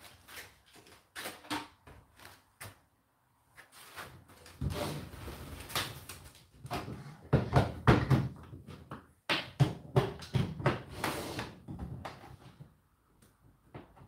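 Irregular knocks, clunks and rustling of hands handling a power cable and objects on top of a tumble dryer and the worktop beside it, loudest about halfway through and dying away near the end.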